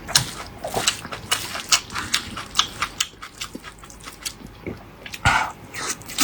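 A person chewing and lip-smacking food close to the microphone: a run of quick wet clicks, with one louder wet sound about five seconds in.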